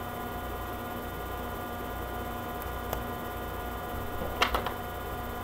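Steady electrical mains hum with several fixed tones over a low hiss. There is a faint tick about three seconds in and a brief sharp clatter about four and a half seconds in.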